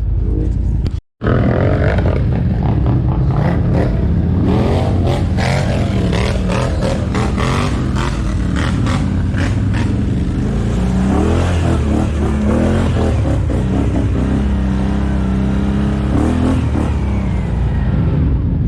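ATV engine running and revving up and down over rough ground, with frequent clattering knocks. The sound cuts out for a moment about a second in.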